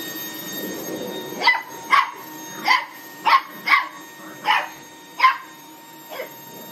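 A boxer puppy barking in short, sharp yaps at a running cordless stick vacuum, about eight barks in a row starting a second and a half in, over the steady whine of the vacuum's motor.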